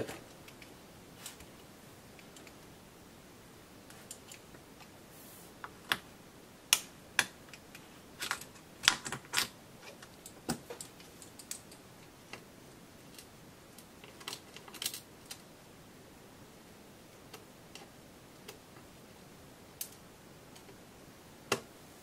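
Small, irregular clicks and taps of a screwdriver and a tiny screw against metal parts inside an open MacBook Pro as a stubborn screw is loosened and worked into place. The clicks bunch up around seven to ten seconds in.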